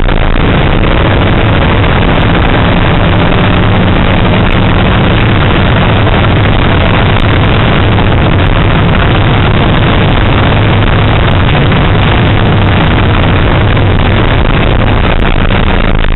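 Car engine running hard at speed, heard loud and steady from inside the cabin, with a dense rush of road and wind noise over a low engine drone.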